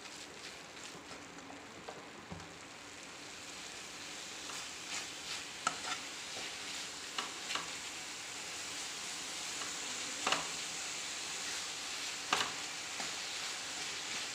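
A wooden spatula stirring a thick, sizzling mixture of grated coconut and dark cane sugar in an aluminium pan, with steady scraping and a few sharp knocks of the spatula against the pan. The mixture is being stirred over the heat until it thickens.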